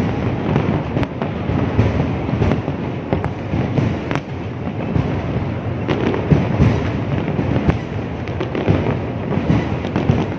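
Fireworks display: aerial shells bursting in quick succession, a steady rumble of bangs with sharp cracks every second or so.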